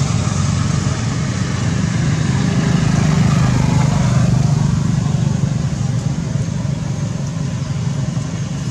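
Steady low rumble of motor traffic running without a break, with a faint hiss above it.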